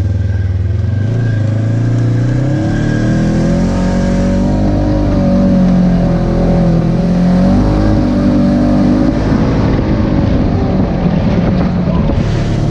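Polaris RZR side-by-side engine running under way on a trail, its pitch rising and falling several times as the throttle is worked.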